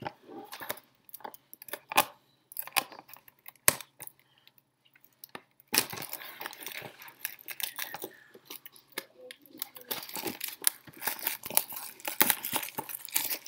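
Hands tearing open a cardboard trading-card box and crinkling its wrapping: a few sharp taps and clicks at first, then about six seconds in a dense stretch of tearing, crinkling and rustling.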